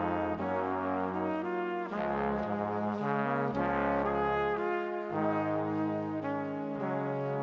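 Instrumental music: held chords over a bass line that moves to a new note every second or so.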